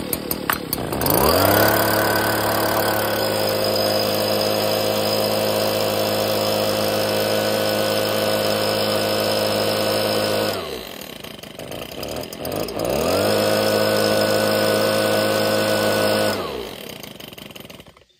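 Stihl BG56 two-stroke leaf blower pull-started: a few quick rope pulls, then the engine catches and runs at a steady pitch for about nine seconds before winding down and stopping. More pulls follow, and it starts again, runs about three seconds and winds down to a stop near the end. It will not keep running after a fix for fuel flooding; the owner thinks the idle needs raising so it can stay running.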